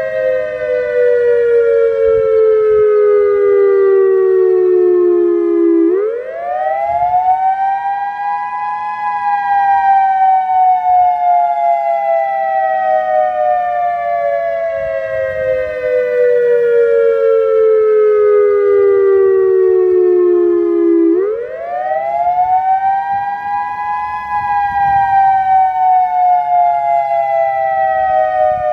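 Federal Signal EOWS-1212 electronic outdoor warning siren sounding a wail: a loud tone with several overtones that climbs quickly in pitch over about three seconds, then slides slowly down for about twelve seconds, a cycle heard twice.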